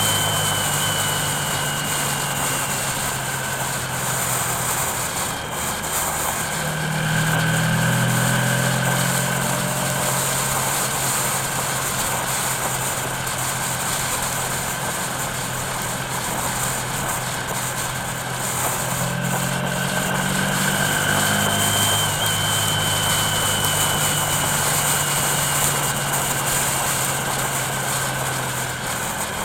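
Car engine and tyre noise while driving: a steady engine hum whose pitch shifts about a quarter of the way in and again about two-thirds of the way in, over continuous road noise.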